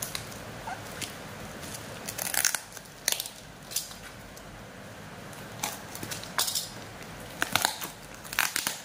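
Parcel packaging being handled and opened by hand: irregular short bursts of crackling and crinkling, over a steady background hiss.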